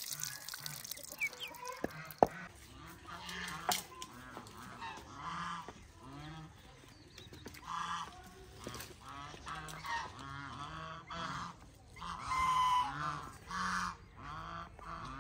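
Domestic fowl calling: a long run of short repeated calls, several overlapping. A single sharp knock about two seconds in.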